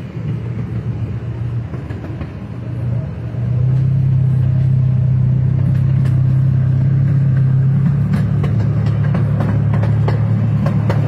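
Narrow-gauge zoo train running on its track, heard from aboard: a steady low engine drone with wheel rumble that grows louder about three and a half seconds in and then holds. A few light clicks come near the end.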